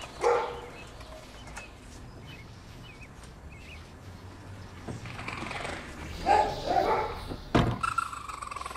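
Raccoon kit crying out with short, wavering, whinny-like calls: one just after the start and a run of several between about six and seven seconds. The calls are typical of a kit left behind calling to its mother. A sharp knock comes at about seven and a half seconds.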